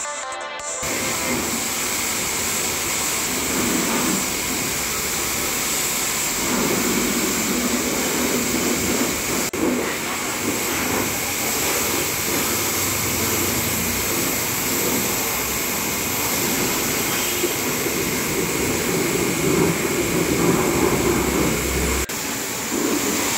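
Pressure washer spraying a jet of water over a soap-covered car to rinse off the foam: a steady, loud hiss of spray with machine noise beneath it.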